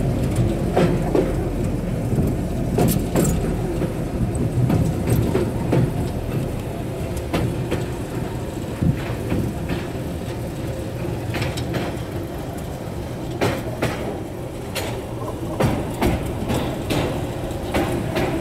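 Open-air sightseeing rail cart running along the track: a steady low engine and rolling rumble, with irregular sharp clicks and knocks from the wheels over the rail.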